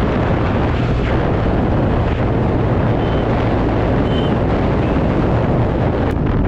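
Loud, steady wind buffeting on the microphone of a moving two-wheeler, a rushing noise heavy in the low rumble.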